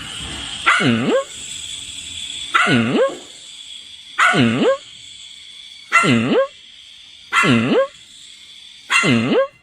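A dog giving six drawn-out barks, one about every one and a half seconds; each bark dips in pitch and then rises again.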